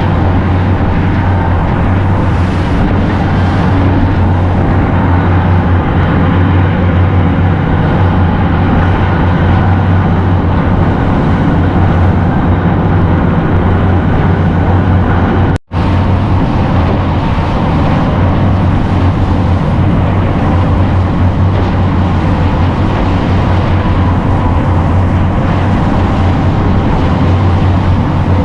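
Tour boat's engine running steadily under way, a constant low hum with rushing noise over it, cut off for an instant about halfway through.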